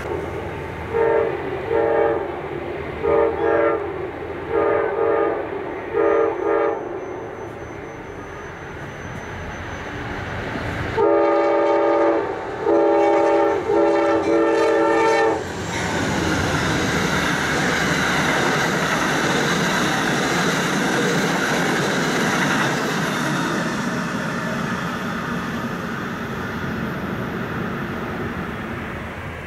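Amtrak passenger train's diesel locomotive sounding its multi-note air horn in a series of blasts: four in the first seven seconds, then three louder ones about eleven to fifteen seconds in. The train then rushes past, with wheel and rail noise that slowly fades.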